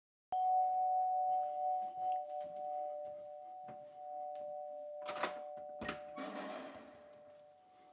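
Doorbell chime struck once, two tones sounding together and slowly fading. About five seconds in come two sharp clicks, then a rustling noise.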